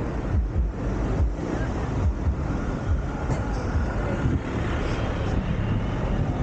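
Road traffic passing: a steady low rumble of vehicle engines and tyres.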